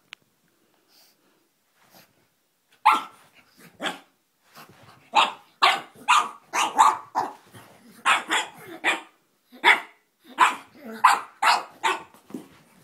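Pug barking over and over at its owner's feet, wanting them: a run of short, sharp barks that starts about three seconds in and comes one or two a second.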